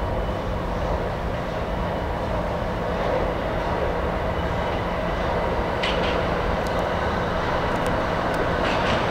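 R68 subway train approaching through a curved tunnel toward the platform: a steady rumble of wheels on rail that grows slightly louder, with a couple of brief, faint high squeaks.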